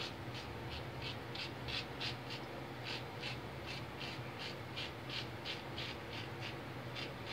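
Ever Ready lather-catcher safety razor scraping through lathered stubble under the chin against the grain, in short quick strokes of about three a second.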